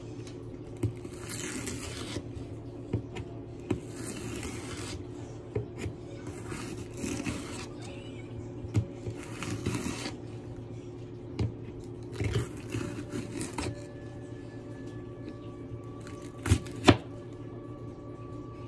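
Knife work on a cutting board: about five scraping, slicing strokes of a second or so each, with scattered light taps of the blade and two sharp knocks near the end.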